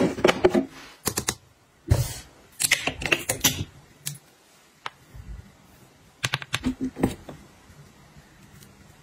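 Plastic toiletry bottles being handled and set down, and a pump dispenser pressed: several quick clusters of clicks and clacks.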